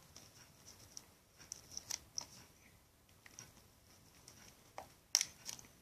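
Faint, scattered clicks and crinkles of playing-card packaging being picked open by hand, with a few sharper clicks about two seconds in and again about five seconds in.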